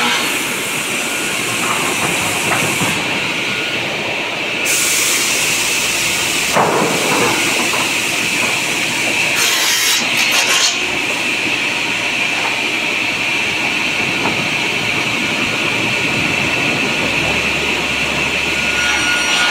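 Sawmill machinery running steadily with a constant hiss and a high whine, and a pendulum circular cross-cut saw cutting into hardwood sucupira preta boards, loudest twice: about five seconds in and again about nine to ten seconds in.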